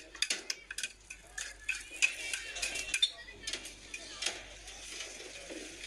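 Metal spoons clinking against bowls and a steel counter as food is served, in quick irregular clicks.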